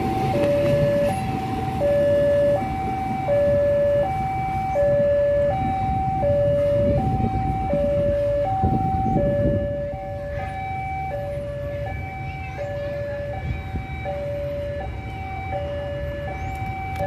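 Railway level-crossing warning alarm sounding its two-tone electronic chime, a higher and a lower tone alternating about every 0.7 s. Under it is the low rumble of a commuter train running past, which drops away about ten seconds in.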